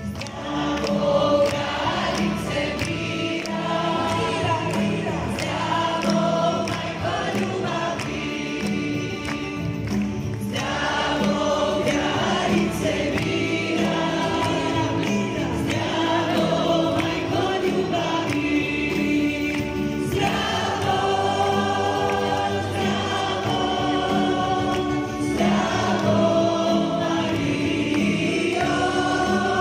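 Congregation singing a praise song together with a live worship band, the many voices carried in long held phrases.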